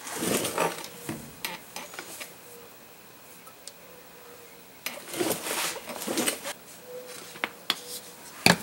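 Plastic squeeze bottle of gear oil being handled and squeezed into a differential's fill hole: plastic crackling and knocks, with a quiet stretch in the middle and a sharp click near the end.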